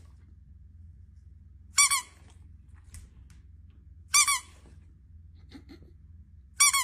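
A rubber squeaky dog toy squeezed three times, about two and a half seconds apart, each a quick high double squeak.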